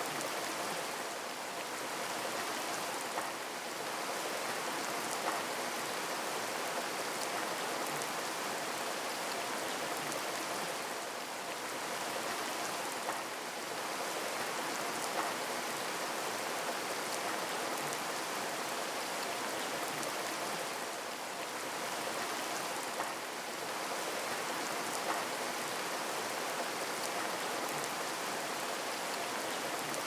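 Steady rain falling, a continuous hiss with a few sharper single drop sounds. The pattern repeats about every ten seconds.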